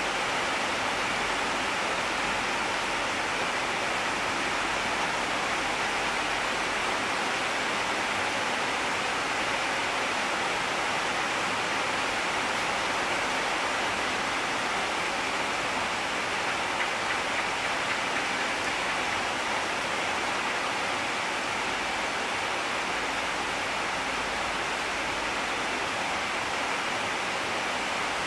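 Steady, even hiss that does not change throughout, with no monkey calls or whimpers heard.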